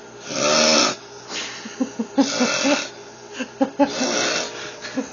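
A man snoring in his sleep: three rasping snores, about one every second and three quarters, with short pitched blips between them.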